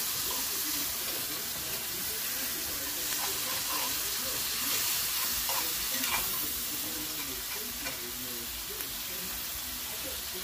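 Sliced mushrooms sizzling in herb butter in a cast-iron skillet, stirred and turned with a metal spoon that now and then knocks and scrapes on the pan.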